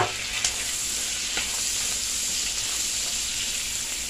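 Sliced sausage, shrimp and just-added diced tomatoes sizzling steadily in a hot nonstick wok, a bright even hiss. A couple of faint clicks in the first second and a half.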